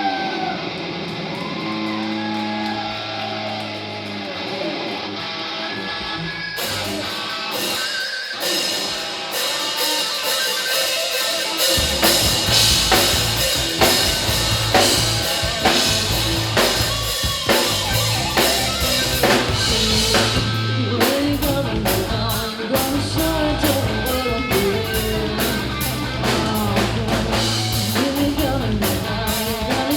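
Live rock band: an electric guitar plays alone with bending, wavering notes for about twelve seconds, then bass and drums come in and the full band plays on together.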